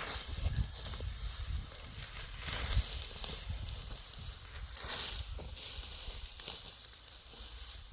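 Dry wheat stalks rustling and swishing as they are cut or pulled by hand, a crisp swish every couple of seconds, over a low rumble.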